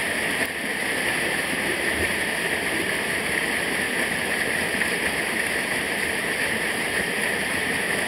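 Small cascade in a rocky mountain stream, water rushing steadily over the rocks.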